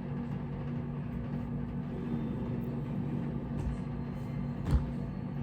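A steady low hum from a motor or machine, with one sharp knock near the end.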